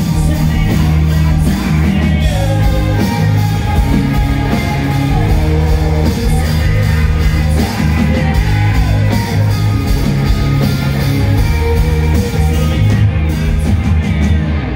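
Live rock band playing loudly, electric guitars, drums and a singer, heard from the crowd. The high end thins out a second or two before the end, and the song stops right at the end.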